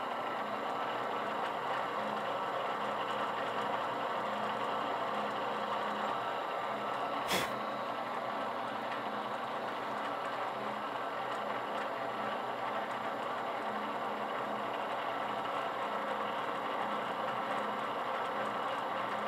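Drill press running steadily while a reamer in its chuck sizes the pin holes through a gear and slip clutch, with a single sharp click about seven seconds in.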